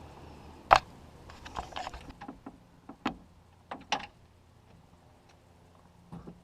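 A series of sharp clicks and knocks at irregular intervals, the loudest under a second in and the last near the end.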